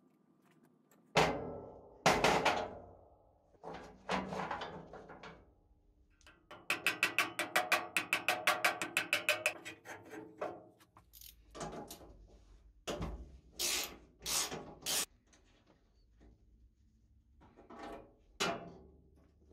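Metal parts of a cast-iron mitre guillotine being handled and knocked during reassembly: two loud clanks, then a few seconds of quick clicking. Then a hammer strikes a part through a wooden block, four sharp knocks in quick succession and one more near the end.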